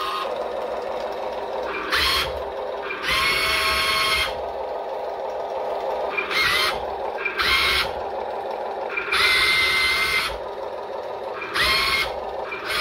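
Huina 580 RC excavator's electric motors whining in about six short bursts as the boom, arm and bucket move, each burst rising in pitch and then holding. Under them runs the steady simulated diesel engine sound from the excavator's sound unit.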